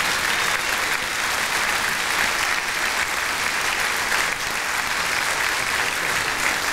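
Audience applauding steadily: dense, even hand-clapping from a large crowd.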